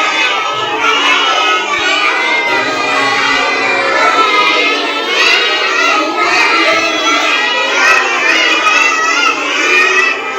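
A large group of children's voices, loud and many overlapping at once.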